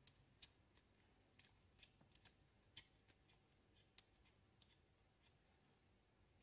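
Faint, irregular small clicks of a flathead screwdriver working the cocking-arm screw out of a Webley Junior air pistol, a dozen or so light metal ticks over near silence.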